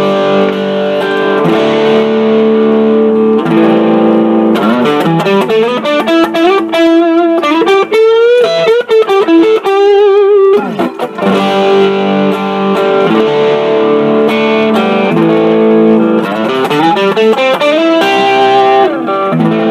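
Electric guitar played through a Blackstar Fly mini guitar amplifier, a run of sustained notes and chords with string bends and vibrato in the middle. The amp is working again after its blown fuse was repaired.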